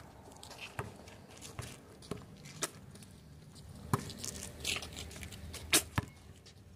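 A basketball bouncing and being caught on an outdoor asphalt court, with players' shoes scuffing: scattered sharp thumps about a second apart, the loudest near the end.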